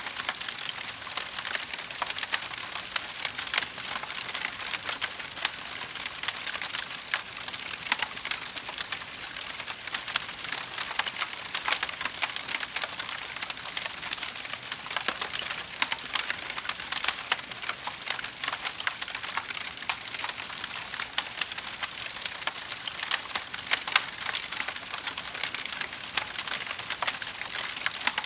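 Fire crackling: a dense, steady stream of small pops and snaps over an even hiss, with an occasional louder snap.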